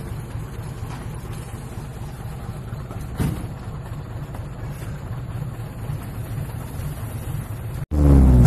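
Diesel truck engine idling through an open, downturned straight exhaust pipe, a steady low rumble. Near the end it cuts abruptly to another truck's engine revving much louder through its exhaust.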